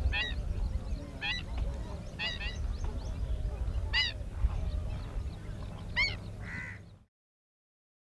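Greater flamingos honking: short goose-like calls, one every second or two, over a steady low rumble. The sound cuts off abruptly about seven seconds in.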